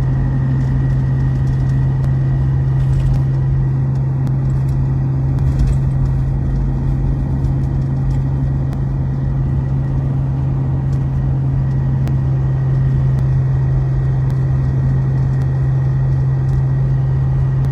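A jeep's engine and road drone heard from inside the cabin while driving, a steady low hum that holds level throughout.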